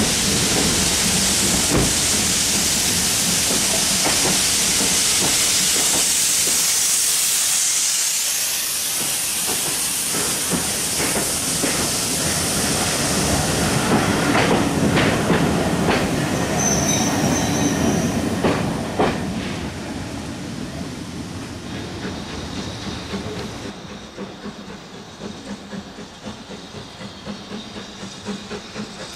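Steam-hauled passenger coaches rolling past a platform, steam hissing from beneath the carriages, with a run of sharp wheel clicks over the rail joints about two-thirds of the way through. The sound then falls away, and near the end only a quieter, distant train sound remains.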